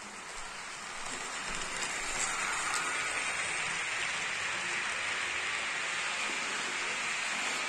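HO-scale model freight train (Mehano SD40 set) running along sectional track, its wheels and motor making a steady rushing noise. The noise grows louder over the first couple of seconds as the cars come close past.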